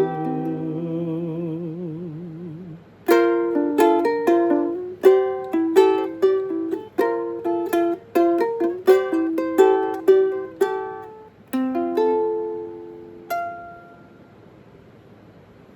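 Instrumental outro: a held, wavering chord fades out over the first few seconds, then a fingerpicked plucked-string instrument plays a slow melody of single decaying notes and chords for about ten seconds, ending on a last note that rings out.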